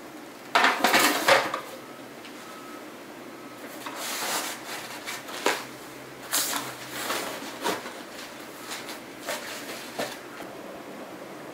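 Objects being slid and pressed into a fabric storage box: a loud scraping rustle about half a second in, then softer rustles and a few light knocks.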